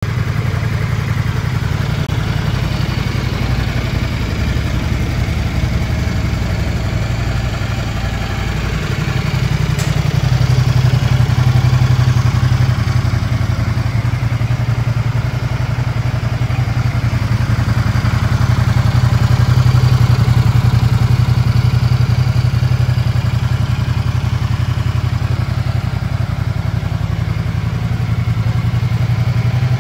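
Ducati XDiavel S's 1262 cc Testastretta V-twin running steadily at idle, a little louder from about ten seconds in.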